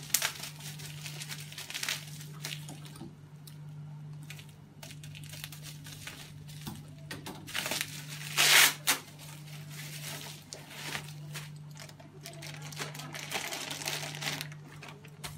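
Plastic packaging bags crinkling and rustling as accessories are unwrapped by hand, in irregular bursts with a louder crinkle about eight and a half seconds in.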